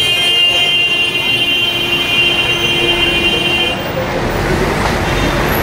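Busy city road traffic, cars and trucks passing close by, with a steady high-pitched tone over it that stops about four seconds in.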